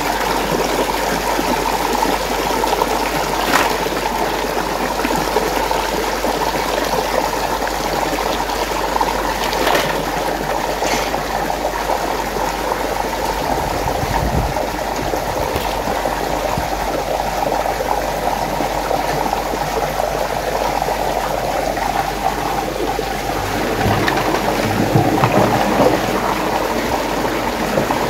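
Water swirling and rushing steadily in a whirlpool, with a few light clicks now and then and a brief swell in loudness near the end.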